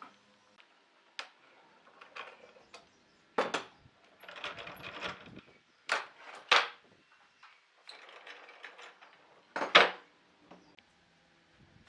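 Hand-tool work on wood: a handful of sharp knocks and clinks, the loudest near the end, with two stretches of rasping or scraping between them.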